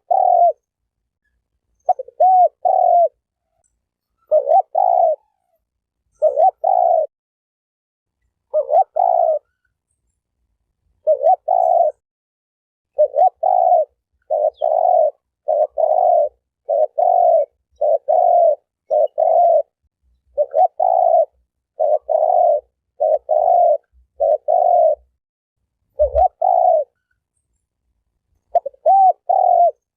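Spotted dove cooing: repeated short, low coo notes in phrases, spaced out at first, then following one another closely from about halfway through.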